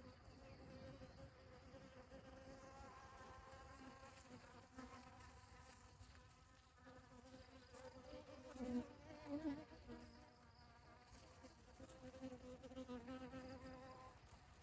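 Honeybees buzzing as they forage in a dragon fruit flower: a faint, steady hum that wavers in pitch and swells briefly a little past halfway.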